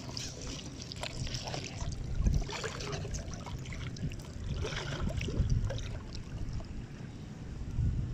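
Shallow muddy water sloshing and splashing as a hand works in it and lifts a fish trap net, with irregular small splashes.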